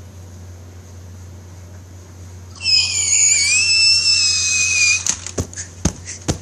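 A boy's long, very high-pitched scream, starting a little over two seconds in and wavering slightly for about two and a half seconds, cut off by a run of sharp knocks.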